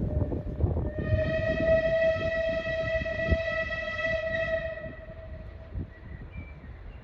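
Steam locomotive whistle giving one long, steady, high-pitched blast of about four seconds, starting about a second in.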